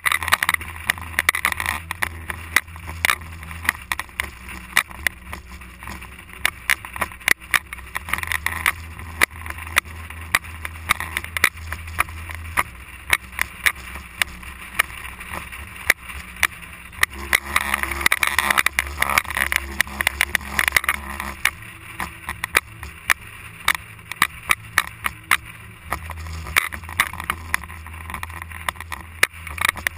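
SUV driving over desert sand dunes, heard from a camera mounted on its outside: a low engine drone with wind rush, growing louder for a few seconds around the middle, and frequent sharp clicks and knocks throughout.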